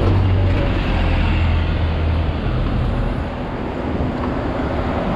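A double-decker bus's engine running close by with a steady low hum, which eases after about two and a half seconds into the general sound of road traffic.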